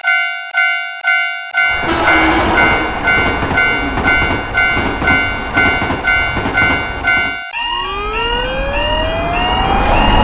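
Japanese railroad crossing warning bell ringing steadily, about two strikes a second; about two seconds in a steady rushing noise joins it, like a train passing. Near the end the bell cuts off and a police car siren winds up, rising in pitch.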